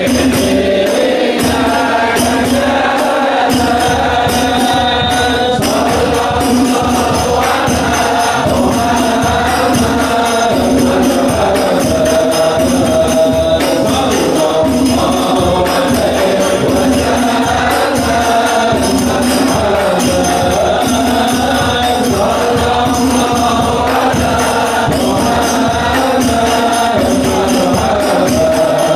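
A men's congregation chanting Islamic devotional verses in unison, accompanied by the steady rhythmic beating of frame drums (rebana).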